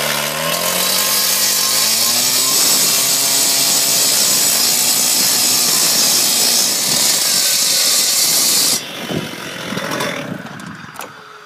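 Petrol concrete cut-off saw revving up and cutting grooves about an inch and a half deep into a 3-inch-thick concrete cap, with a loud, steady grinding of blade on concrete. A little before the end the blade comes out of the cut and the engine winds down.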